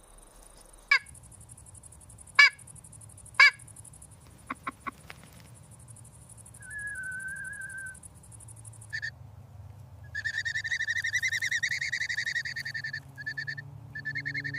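Birds calling over a steady high insect buzz. There are three loud, sharp, downward-sweeping calls in the first few seconds, then a short wavering whistle, and from about two-thirds of the way in a long rapid trill followed by a few short bursts of the same.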